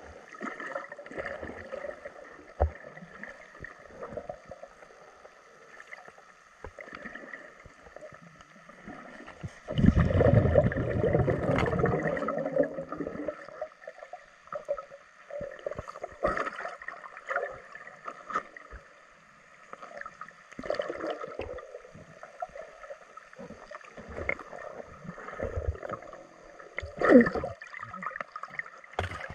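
Muffled underwater sound picked up through a waterproof camera housing: water movement with scattered clicks and knocks, a louder rumbling burst lasting about three seconds starting about ten seconds in, and a sharp knock near the end.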